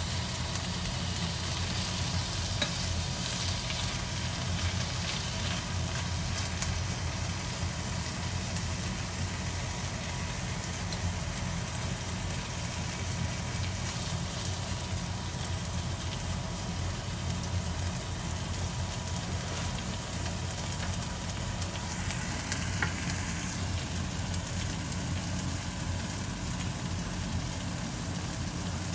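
Okonomiyaki of chopped cabbage batter on pork belly slices sizzling steadily in a nonstick frying pan, with wooden chopsticks tapping and scraping now and then as the batter is pressed and shaped. A steady low hum runs underneath.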